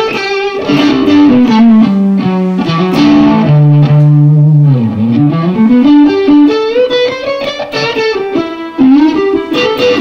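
Electric guitar with a single-coil Strat-style pickup in the neck position, played through a Boss JB-2 Angry Driver overdrive in Blues Driver mode into a Vox AC30. It plays pentatonic blues lead lines: single notes with bends, and about halfway through a low note dips in pitch and comes back up. The tone has a light overdrive typical of the Blues Driver.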